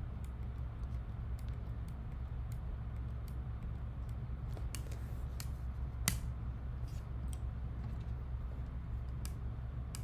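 Scattered sharp clicks from working a computer, a dozen or so at irregular intervals with the sharpest about six seconds in, over a steady low hum.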